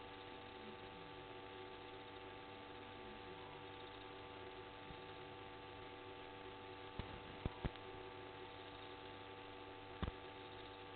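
Steady electrical hum with hiss in the live camera's audio feed, broken by a few short, sharp clicks: three close together about seven seconds in and one more near the end.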